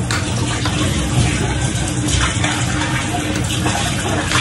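Kitchen tap running into a stainless-steel sink while a bowl is rinsed by hand under the stream, with a few light knocks of the bowl against the sink.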